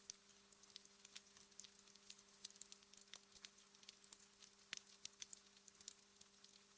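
Wood fire crackling quietly in a fireplace: irregular small pops and snaps, a few a second, over a faint steady hum.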